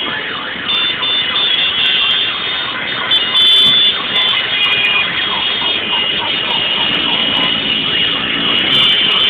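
Many motorcycle horns honking at once in a dense, overlapping din, over the running of motorcycle engines.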